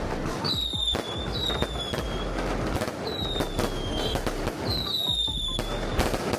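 Firecrackers cracking and popping irregularly, with four short whistles that fall slightly in pitch.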